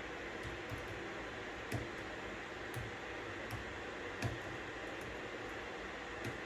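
Steady white noise hiss with sparse, irregular keystrokes on a computer keyboard, single clicks roughly once a second rather than continuous typing.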